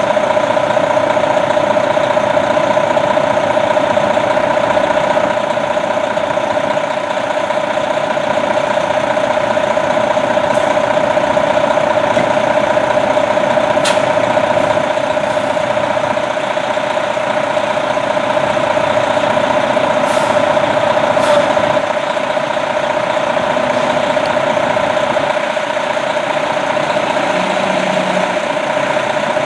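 Fire engines idling, under a steady, unbroken high tone. A few brief sharp sounds come around the middle and again about two-thirds of the way through.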